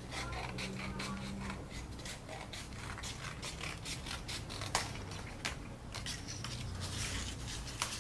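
Pencil scratching on white card in a run of short strokes, marking out a curved line, with a couple of sharper taps about halfway through.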